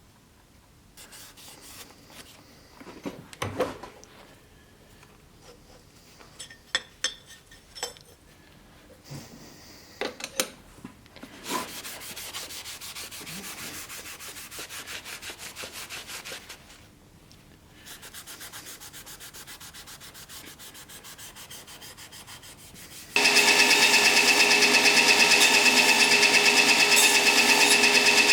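Scattered knocks and clicks, then a fast, even rubbing from sanding the forged knife blade. About 23 seconds in, a power tool starts up much louder, with a steady whine.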